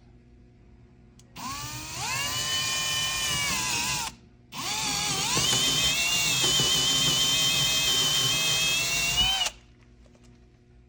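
Power drill boring a hole for a lag bolt through the wall into a wood stud. It runs in two bursts, about two and a half seconds and then about five seconds, with a short stop between. Each burst starts with a whine that rises as the drill comes up to speed, and the drill cuts off near the end.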